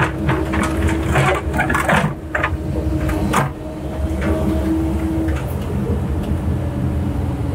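CAT 308 excavator's diesel engine and hydraulics running under load, heard from inside the cab, with a steady whine that drops away a little past halfway. Several sharp knocks come in the first three seconds or so as the machine works the riprap rock.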